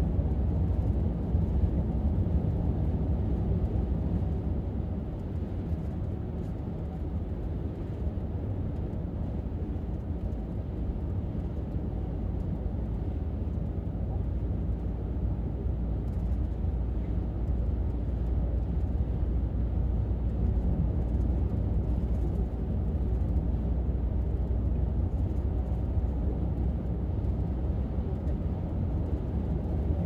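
Steady low road-and-engine rumble heard inside the cabin of a 2018 Dodge Grand Caravan minivan cruising on a highway.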